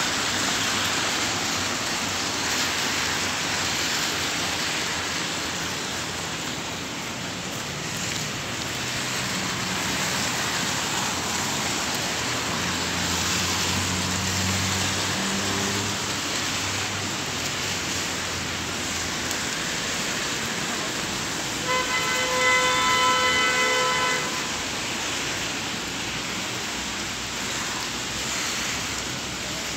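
Steady hiss of rain and traffic on wet streets, with a car horn honking for about two seconds near the end.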